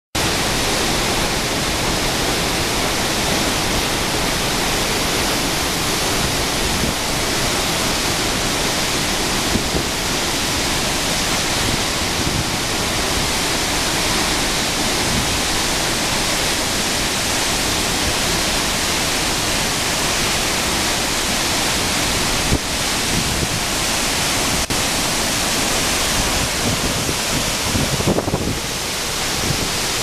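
Telun Berasap waterfall's high, powerful flow plunging into its pool: a loud, steady rush of falling water.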